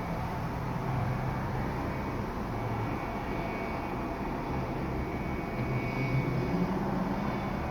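Steady wind rushing and rumbling over the microphone.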